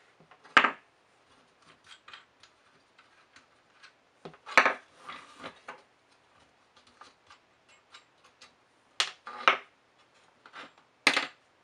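Scattered light clicks and ticks of M5 screws and nuts being undone from a 3D-printed plastic alternator case, with a few louder sharp plastic clacks.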